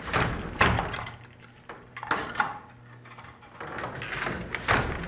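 Old European-style two-harness hand loom being worked: a series of wooden-sounding clacks and knocks at an uneven rhythm as the weaving goes on.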